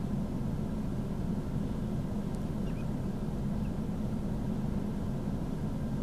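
A steady low rumbling noise with no distinct events in it.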